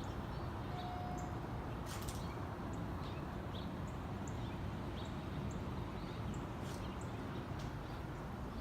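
Outdoor ambience: short, high bird chirps repeating every half second or so over a steady low rumble.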